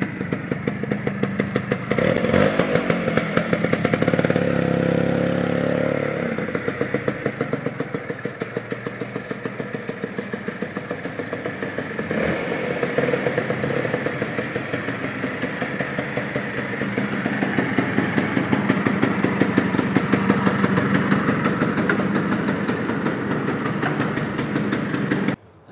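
Vespa two-stroke scooter engine running as the scooter is ridden slowly, revs rising for a few seconds early in the ride, then running steadily at low revs until it is switched off suddenly near the end. By the owner's account the engine now runs free of the detonation knock it had, after lowering the compression and fitting a copper head gasket.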